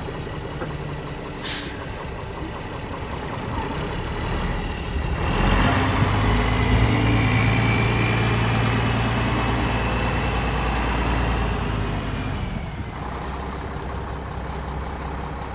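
Mack E7 inline-six diesel of a 1996 Mack CH613 truck tractor running as the truck drives slowly around. The engine gets louder about five seconds in, holds there, and eases off again near the end. There is a short click about a second and a half in.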